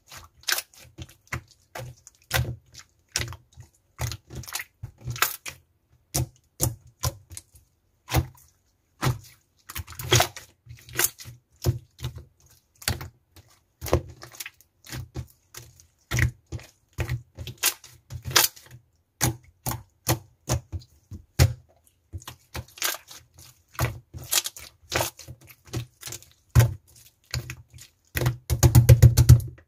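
Clear slime being squished and pressed by hand, giving irregular sharp clicks and pops, with a quick run of clicks near the end.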